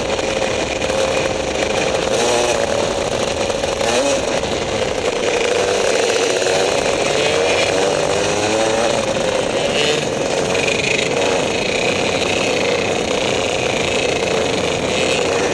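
Rotax two-stroke kart engine running at racing speed, heard onboard, its pitch rising and falling with the throttle through the corners over wind noise on the microphone.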